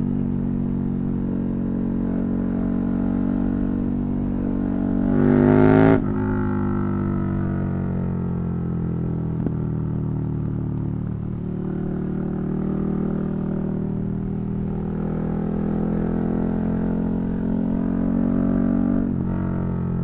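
KTM 1290 Super Duke R's 1301 cc V-twin engine running under way at a steady pace. About five seconds in the revs climb and grow louder for about a second, then drop suddenly, and it settles back to a steady run.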